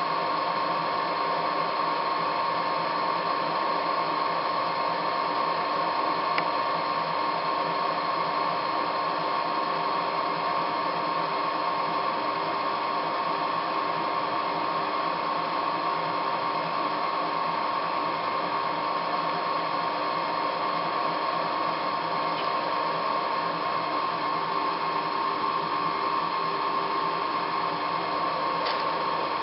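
Heyligenstaedt lathe running steadily at 500 rpm with a 9 kg wooden bowl blank mounted: an even mechanical hum with a fixed high whine that holds without change.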